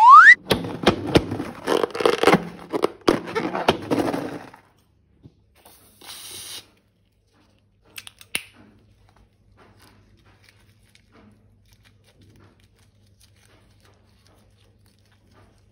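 Balloon and slime being handled: a short rising squeak, then about four seconds of dense crackling, and a brief hiss about six seconds in.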